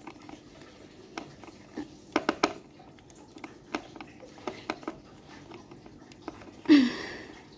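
A screwdriver turning a small screw out through a cardboard packaging base: scattered light clicks and scrapes of the blade in the screw head and against the cardboard. A brief louder sound comes near the end.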